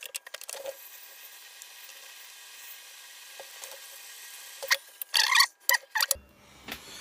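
Soldering iron on the amplifier board's capacitor joints, solder and flux sizzling with a steady faint hiss while the capacitors are desoldered, followed a little before the end by several sharp clicks and knocks.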